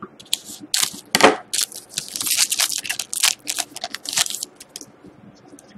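Foil trading-card pack wrapper crinkling as it is torn open and the cards are slid out, a rapid run of crackles that stops about four and a half seconds in.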